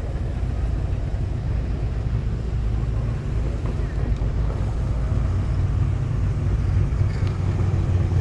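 Car engines and exhausts rumbling low and steady as a line of classic cars drives slowly past one after another.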